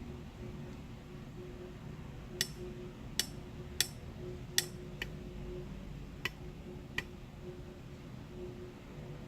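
A small metal tool clicking sharply against the soldered flex-cable pins, seven light taps spaced irregularly over about five seconds, as each pin is prodded to check that it has stuck.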